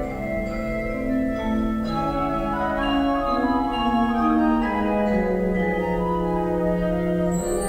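Wind band playing slow, sustained chords with a melody moving stepwise beneath and above them. A bright high shimmer swells in right at the end.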